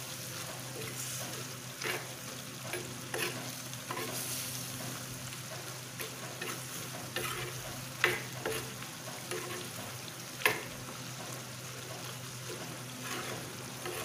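Chicken gizzards sizzling in a thick masala in an earthenware clay pot as they cook down, stirred with a metal spoon that scrapes and knocks against the pot, the two sharpest knocks about eight and ten and a half seconds in.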